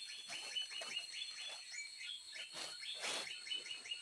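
Forest night-chorus ambience: many quick, repeated chirping calls from frogs or insects over a steady high-pitched insect drone, with a couple of brief rustles around two and a half to three seconds in.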